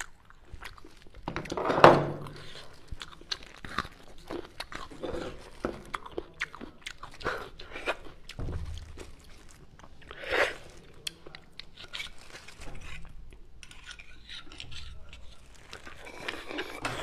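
Close-miked wet mouth sounds of beef bone marrow being sucked out of the bone and chewed: many small smacks and clicks, with two loud slurps about 2 seconds in and about 10 seconds in.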